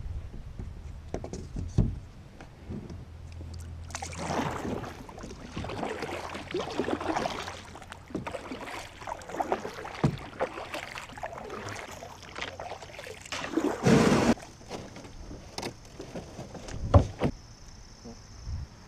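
A kayak being paddled on calm water: irregular paddle strokes swishing and splashing, with a louder rush of water about two-thirds of the way through and a sharp knock against the hull soon after.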